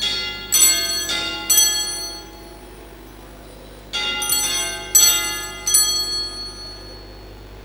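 Altar bell rung at the elevation of the chalice after the consecration: a ringing bell struck in two groups, a pair of strikes about a second apart, then after a pause of about two seconds three more strikes, each ringing on and fading.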